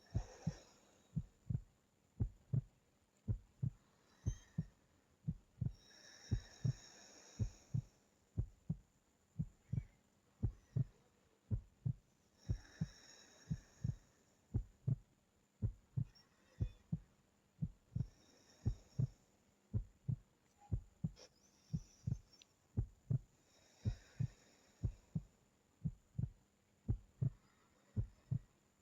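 Slow, even breathing of a sleeping person, one soft breath about every six seconds, over the steady double thump of a heartbeat at about one beat a second.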